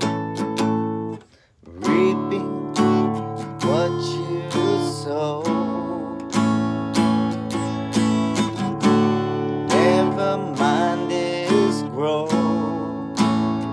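Acoustic guitar strummed in a steady rhythm, with a brief pause just over a second in before the strumming picks up again.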